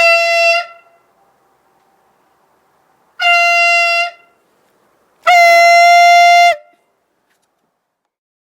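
Homemade soda-bottle compressed-air horn sounding three loud blasts of one steady pitch, the last the longest.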